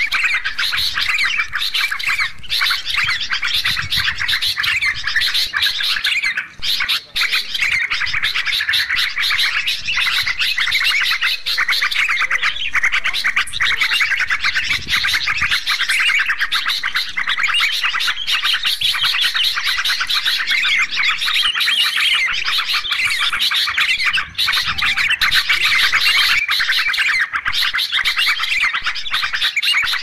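Dense, unbroken chorus of many bulbuls calling and chattering over one another: yellow-vented bulbuls and sooty-headed bulbuls mixed together as a bird-trapping lure recording.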